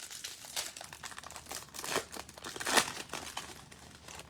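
Plastic wrapping on a trading-card box crinkling and tearing as it is ripped open, in a quick run of crackles, the loudest a little under three seconds in.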